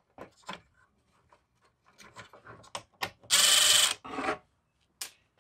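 Cordless power driver running in one short burst of under a second, about three seconds in, backing out a screw that holds a headlight adjuster to a plastic Jeep Grand Cherokee header panel. Light clicks and plastic handling come before and after it.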